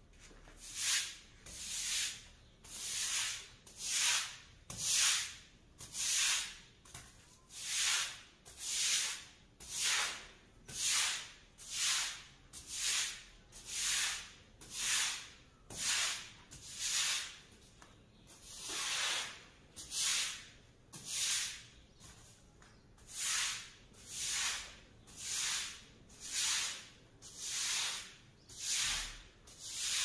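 Stiff-bristled long-handled brush scrubbing wet, soapy concrete paving stones in steady back-and-forth strokes. Each stroke gives a scratchy, hissing swish, about one a second, with a couple of brief pauses.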